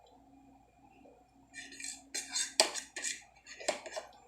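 Eating utensils scraping and clinking against a dish of pancit canton noodles. The scraping starts about a second and a half in, with two sharper clinks in the second half.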